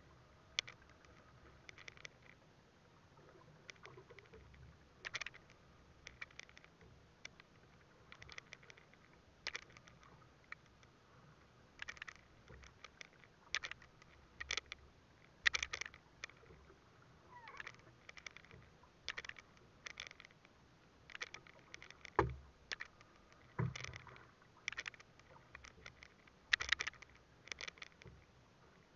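Water lapping and slapping against the hull of a small open boat at sea: faint, irregular clicks and splashes, with two louder low knocks on the hull about three quarters of the way through.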